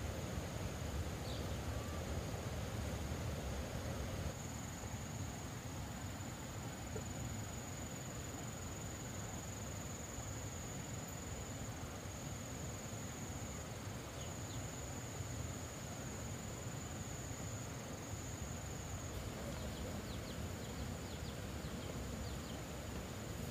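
Insects chirring in a steady high-pitched drone over a low even background noise, with a few faint ticks near the end.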